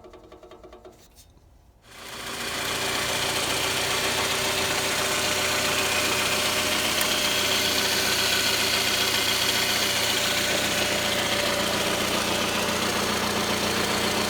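Toyota 2AZ-FE four-cylinder engine running steadily at idle, coming in loud about two seconds in after a faint ticking.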